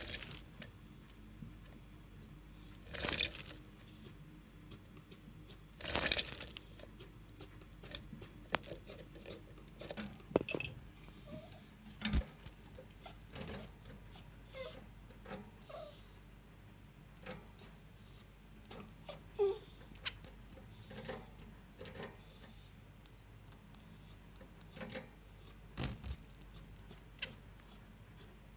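Zebra finch shaking and fluttering its wet feathers after a bath: two louder brief rustling bursts a few seconds apart early on, then scattered soft rustles and clicks as it moves about and preens.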